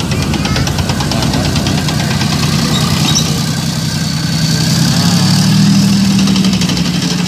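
Main battle tank driving past on a paved road: its engine runs with a steady low drone over a fast, even clatter of the tracks, swelling a little as it passes about five to six seconds in.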